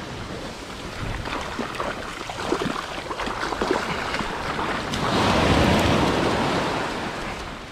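Small waves washing up a sandy beach and draining back. The rush of water builds to its loudest a little past the middle, then fades.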